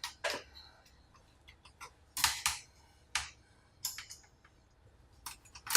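Scattered sharp clicks and taps, about half a dozen at irregular intervals, from small plastic and metal parts of an old laptop being handled and pried apart.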